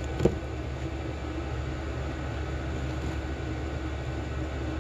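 Steady low mechanical hum of background room noise, with one short, sharp sound just after the start.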